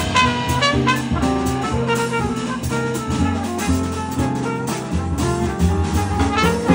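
Live small-group jazz: a trumpet plays a melody line over upright bass and a drum kit with cymbals.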